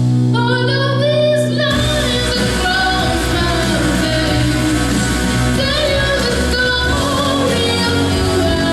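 A woman singing a song over instrumental backing music, her voice gliding between held notes.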